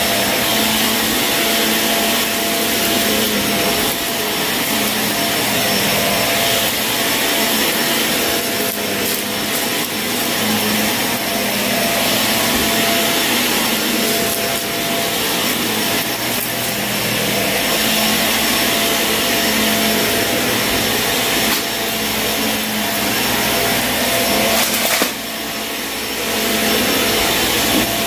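Shark vacuum cleaner running steadily on a dirty carpet, with a constant motor whine under the rushing suction and scattered clicks of debris being sucked up. The sound dips briefly near the end.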